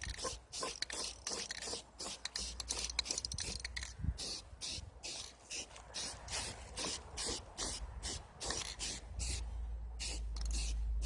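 Aerosol spray-paint can hissing in short repeated bursts, roughly two a second, as paint is sprayed on in quick strokes. A low rumble comes in near the end.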